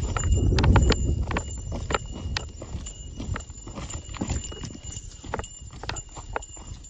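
A hiker's footsteps on a rocky mountain trail: irregular sharp taps and scrapes of boots on stone, several a second, with wind gusting on the microphone as a low rumble, strongest in the first second or so.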